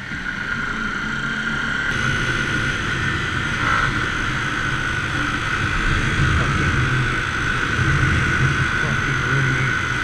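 Motorcycle running on the road, heard from the rider's helmet camera: a steady engine drone mixed with wind rush over the microphone.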